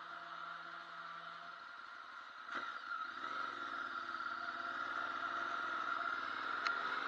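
Motorcycle engine pulling away from a stop from about two and a half seconds in, its pitch rising and falling as it accelerates, with a steady high whine throughout.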